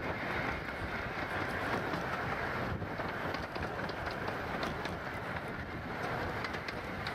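15-inch gauge steam locomotive running along the track, heard from the footplate: a steady running noise with scattered clicks from the wheels on the rails.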